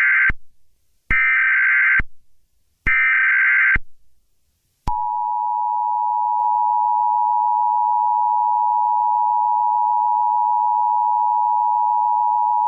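Emergency Alert System alert tones: the SAME digital header's harsh data bursts, the end of one and then two more, each about a second long with a short gap between them. About five seconds in, the steady two-tone EAS attention signal starts and holds, marking the start of an emergency broadcast message.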